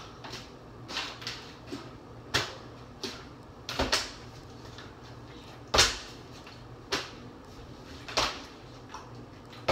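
Plastic water bottles holding some water being flipped and knocking down onto a kitchen counter. About ten sharp knocks come irregularly, roughly one a second, some in quick pairs.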